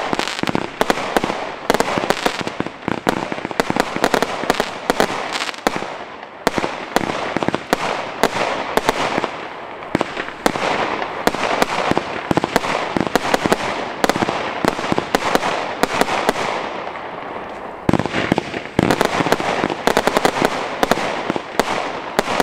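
Weco Midnight Madness 167-shot compound firework battery firing: a dense, rapid run of shots and bursts. It thins out briefly after about sixteen seconds, then a sudden new volley starts.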